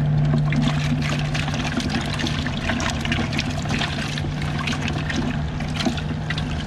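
A hand sloshing and scooping through the water of a live-bait bucket to catch live shrimp: splashing and dripping, over a steady low hum.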